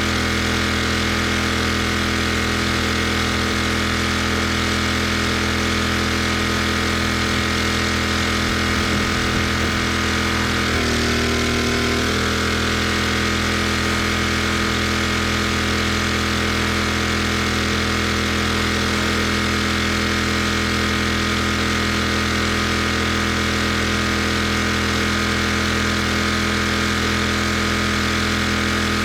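Pressure washer engine running steadily under load. About eleven seconds in, its pitch steps up for about a second and then settles back.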